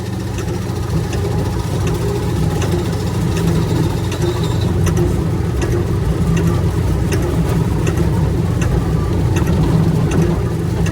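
Large excavator's diesel engine running steadily in heavy rain, with scattered sharp ticks over the engine hum.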